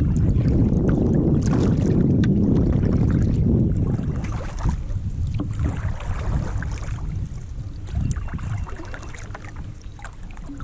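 Wind buffeting the microphone on a kayak on open water, heaviest for the first few seconds and then easing off. Light water splashes and small knocks come through scattered over it.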